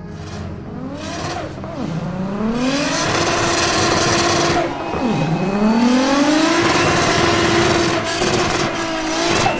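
Turbocharged 2JZ-GTE straight-six of a Toyota Supra revving hard: the revs climb and hold high, drop sharply about five seconds in, then climb and hold again, with a strong hiss over the engine note.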